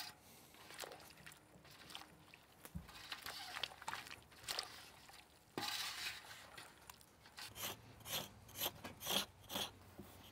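A blade scraping the fibers off a root used for canoe lacing: quiet handling and rustling at first, then from about the middle a steady run of short scraping strokes, about two a second.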